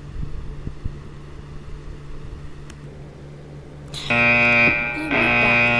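A low steady hum, then about four seconds in a loud buzzing electronic tone starts, sounding in long pulses with short breaks.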